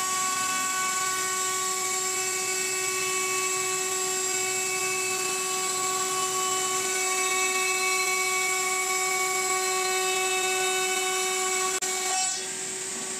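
Esuton ESQH-3015 stone countertop CNC machine cutting a sink opening in a stone slab: its spindle runs with a steady high whine, rich in overtones and holding one pitch. Near the end the sound drops out for a moment and comes back quieter.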